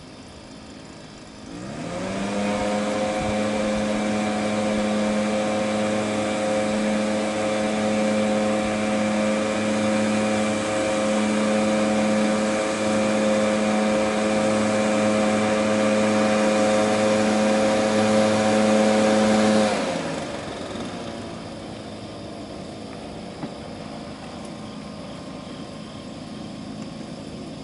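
Leaf blower engine driving the canoe: it revs up from idle about a second and a half in, holds a steady full-throttle note for about 18 seconds, then drops back to a quieter idle near the end.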